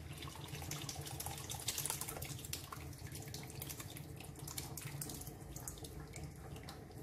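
Curdled milk poured from a steel pan through a cotton cloth over a strainer: the whey splashes and trickles down with the soft curds, the pour busiest in the first few seconds and thinning to a trickle near the end.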